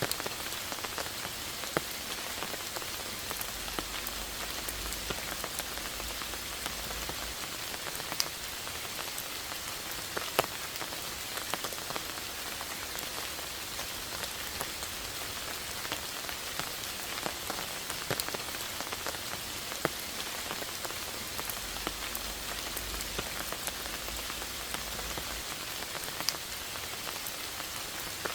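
Steady rain falling, a constant hiss with scattered individual drops ticking sharply on leaves and moss.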